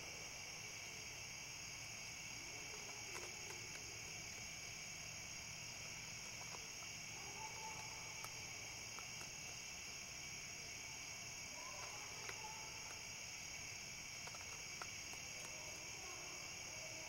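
Steady chorus of night insects trilling at two pitches, one high and one lower, with a few faint clicks.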